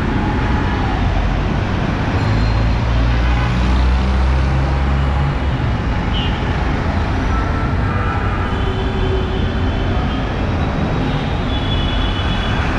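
Busy street traffic on a wet road: CNG auto-rickshaws and buses passing close, their engines running over a steady hiss of tyres on wet asphalt. A heavy engine drone swells from about two seconds in and fades near the middle, and a bus pulls right alongside near the end.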